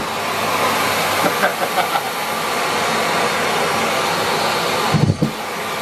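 Miele Complete C3 canister vacuum cleaner running on high power, sucking up socks, with a steady rushing of air. About five seconds in, the rush briefly drops to a lower sound.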